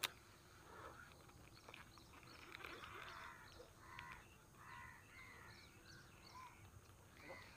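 Faint, distant crow caws and other scattered bird calls over an otherwise near-quiet pond, with a short click at the very start.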